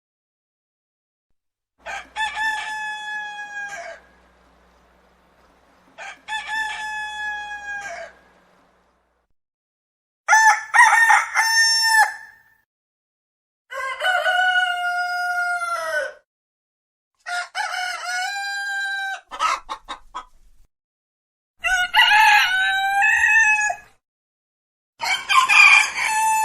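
Roosters crowing: a series of seven separate crows, each lasting two to three seconds, with silence between them and differing in pitch from crow to crow.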